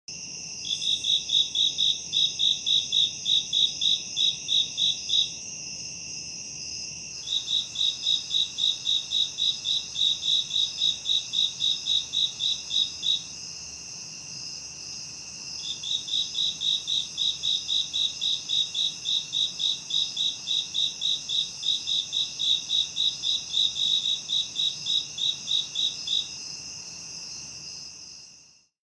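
Crickets and other insects singing at night: a steady high trill runs throughout, under bouts of loud, regular cricket chirps at about three a second. The chirping pauses twice, and the whole chorus fades out near the end.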